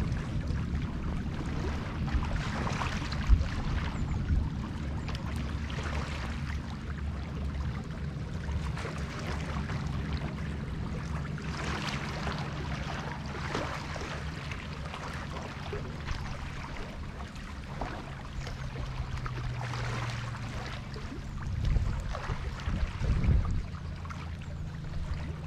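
Rain and water splashing and lapping around a jetty, over a continuous low rumble with a faint steady hum; a sharp click comes about three seconds in, and a deeper rumble swells twice near the end.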